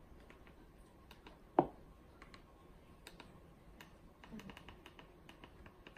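Faint clicking of a TV remote control's buttons being pressed: one sharper click about a second and a half in, scattered light clicks, and a quick run of repeated clicks a little past the middle.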